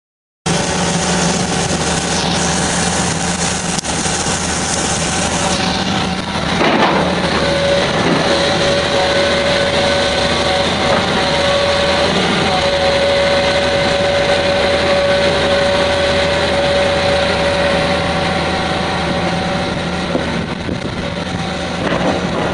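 Doosan Daewoo 340LC-V crawler excavator's diesel engine running steadily, with a steady higher whine that comes in about seven seconds in and fades near the end.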